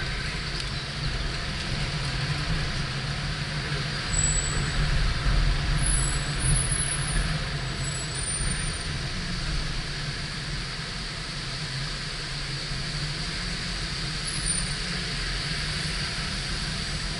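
Steady road noise of a car being driven: low rumble of tyres and engine with a hiss of air and traffic, swelling a little about four to seven seconds in.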